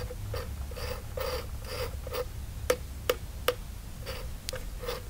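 Fuel-level sender's float arm being worked back and forth on its plastic pivot: short clicks and scrapes about two a second, with a few sharper snaps near the middle. The pivot is still too tight, the owner reckons, for the float to drop back freely.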